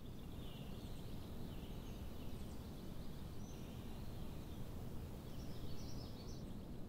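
Faint steady ambient rumble with scattered faint high chirps, like small birds outside.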